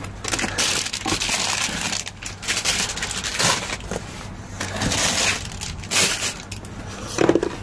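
Rummaging through dumpster trash: plastic packaging and bags rustling and crinkling in irregular bursts.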